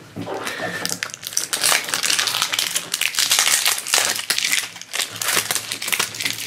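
Thin plastic wrapper crinkling and tearing as it is peeled off a small plastic blind-box toy can, a dense, irregular crackle that starts about a second in.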